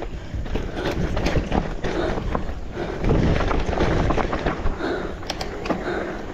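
Electric mountain bike ridden over a rough trail: tyres running over dirt, with irregular knocks and rattles from the bike. It gets louder about halfway through.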